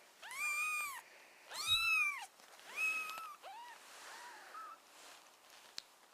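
Newborn kittens mewing: three loud, high, arching mews, then a run of fainter, lower mews.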